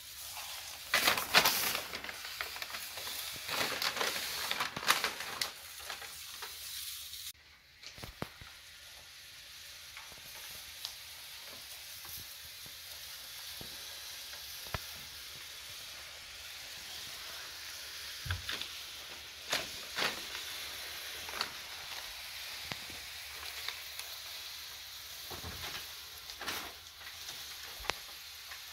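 A large sheet of crumpled paper crinkling and rustling, and sliding across a wooden floor as it is pulled. Loud, crackly crinkling fills the first seven seconds; after that comes a steadier hiss with scattered crackles and taps.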